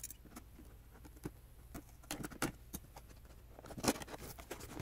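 Cardboard box being opened by hand: scattered small clicks and scratches as the lid and flaps are worked loose, with a brief cluster of rustling near the end.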